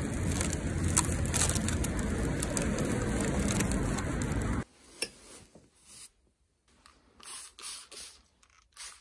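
Plastic shopping bags rustling and swinging against steady outdoor noise while walking. About four and a half seconds in it cuts to a quiet room, where disinfectant is sprayed onto padded winter coats in several short bursts.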